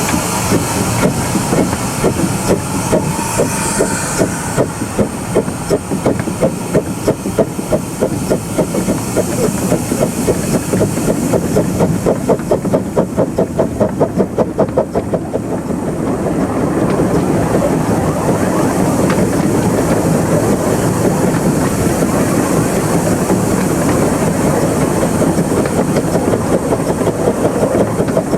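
Krupp 4-6-2 Pacific miniature steam locomotive on 15-inch gauge track working along with rapid, even exhaust beats over the clatter of wheels on rail. Past the middle the beats give way to a steadier rushing run, and they come back near the end.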